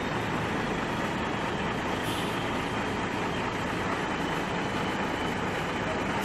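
Coach bus engine running steadily as the bus manoeuvres slowly away, a constant low drone with road and exhaust noise.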